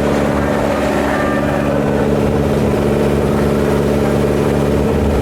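Tour boat's engine running steadily under way, a constant low hum that does not change in pitch or level.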